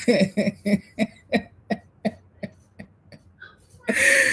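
A woman laughing: a run of short voiced "ha" pulses, about three a second, fading and slowing, then a louder breathy burst of laughter near the end.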